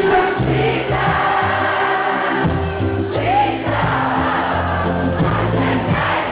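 Dancehall music played loud at a live concert, with a bass line and vocals over it and a crowd singing along.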